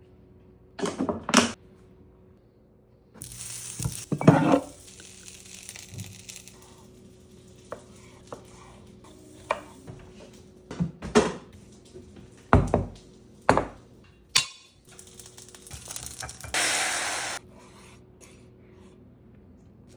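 Kitchen cooking sounds: pans and metal utensils clattering in a string of sharp knocks, with two stretches of food sizzling in a frying pan, the second louder and stopping abruptly.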